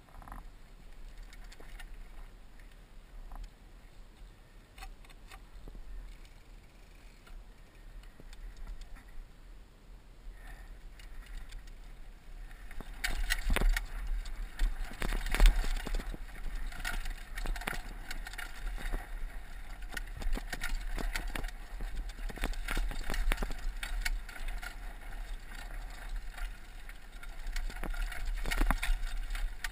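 Downhill mountain bike clattering over a dusty, rocky trail, with the bike rattling over bumps and a low rumble on the helmet camera's microphone. It gets louder and busier about halfway through as the pace picks up.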